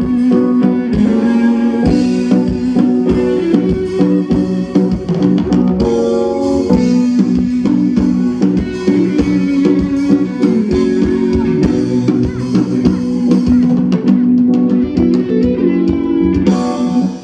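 Band playing: guitars over a drum kit and bass guitar, with steady drum hits under held guitar notes.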